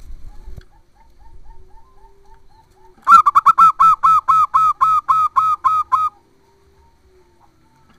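Zebra dove (perkutut) calling: a loud, rapid run of about a dozen staccato cooing notes, about four a second, starting about three seconds in and lasting about three seconds. Fainter short notes come before it.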